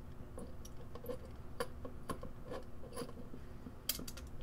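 Small screwdriver turning screws out of an electric kettle's plastic housing: scattered light clicks and scrapes, the sharpest click near the end.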